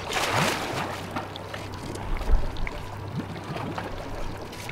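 A crab trap splashing into the sea as it is thrown overboard, followed by small knocks as its rope goes over the side, over a low steady hum. A dull low thump comes a little over two seconds in.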